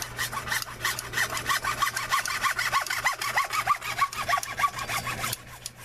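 Hand hacksaw cutting through 1.5-inch PVC drain pipe in quick, even back-and-forth strokes, each with a short plastic squeak. It stops shortly before the end as the cut finishes.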